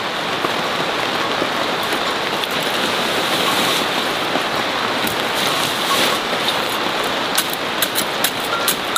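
Steady rain hissing on leaves and ground. Near the end a quick series of sharp clicks comes as a knife cuts at a harvested ginger clump.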